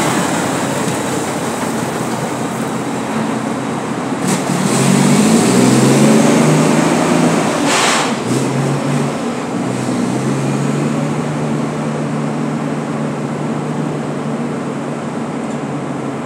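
Dump truck's diesel engine pulling away and accelerating, its pitch rising about five seconds in, then running steadily as the truck drives off. Two short sharp noises cut through, around four and eight seconds in.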